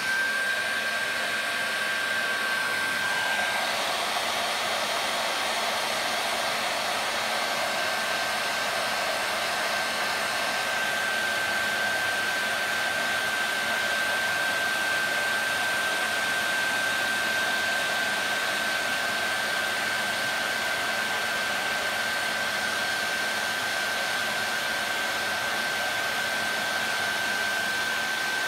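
Handheld hair dryer running steadily, blowing air, with a steady high whine from its motor fan. A faint lower tone drops out about three seconds in.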